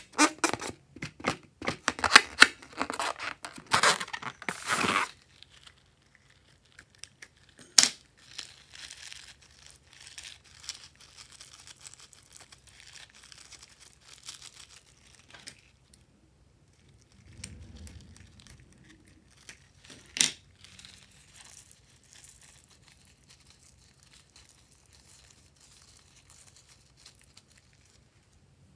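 Rubber balloon crackling and tearing as hands squeeze it and peel it open over a glass bowl. The rasping is loud and dense for the first few seconds, then goes on more quietly, with a couple of sharp clicks.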